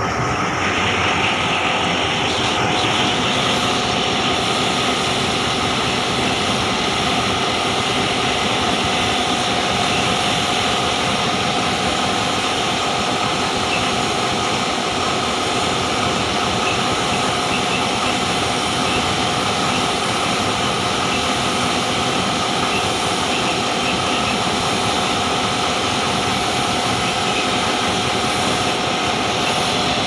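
A steady mechanical drone with a hiss, even in level throughout.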